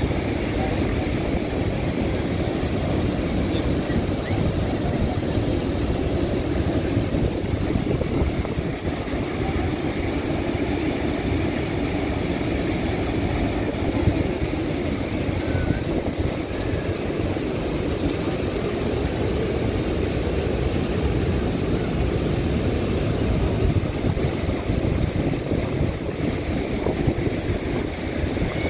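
Muddy floodwater pouring over a long weir in a wide cascade: a steady rushing noise without pause.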